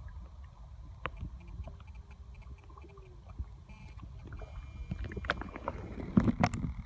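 Muffled underwater sound recorded through an iPhone held below the surface: a low, steady rumble of moving water with scattered clicks, growing into a louder run of clicks and knocks near the end.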